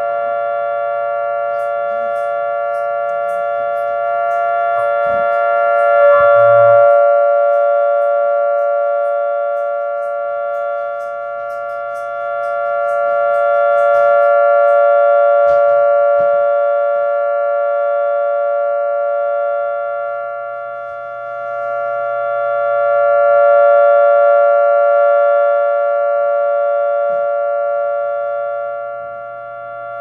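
Small-scale Federal Signal 3T22 three-tone siren sounding a steady alert: a held chord of several tones that swells and fades about every nine to ten seconds, as a rotating siren does.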